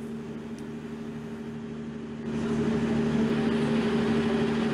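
Steady mechanical hum with a fixed low drone, stepping louder about two seconds in.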